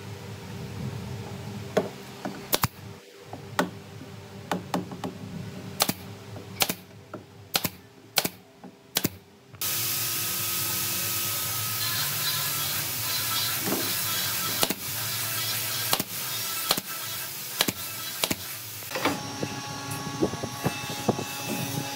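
Irregular sharp knocks and clicks of wood on wood as half-round log trim pieces are handled and pressed against the edge of a wooden sink cabinet top. About ten seconds in, a steady hiss starts suddenly and the knocks continue over it.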